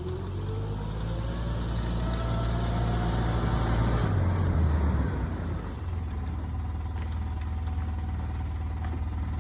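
Motor vehicle driving off, its engine pitch rising over the first four seconds, then dropping back and running steadily.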